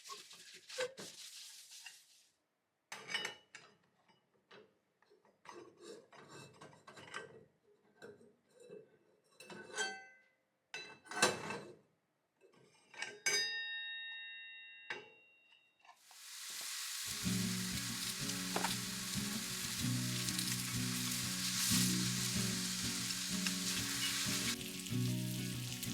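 Kitchen clatter: a string of small clicks and clinks of utensils and dishware, with a short ringing tone a little past halfway. Then food starts sizzling loudly in a frying pan and keeps on steadily, with background music coming in under it.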